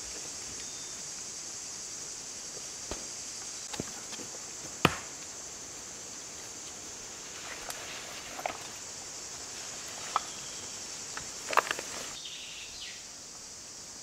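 Footsteps on dry leaf litter with scattered sharp twig snaps and clicks, and a rustle of gear late on, over a steady high insect drone that stops shortly before the end.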